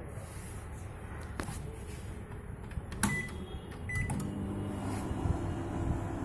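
LG MC-7688DP microwave oven: two short keypad beeps about three and four seconds in, then the oven starts running with a steady hum.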